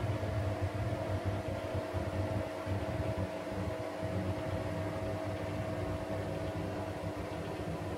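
Bathroom extractor fan running with a steady hum.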